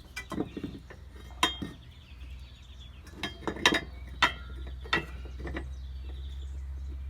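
Cast-iron campfire sandwich iron being handled, its metal parts giving about ten sharp, irregular clinks and knocks.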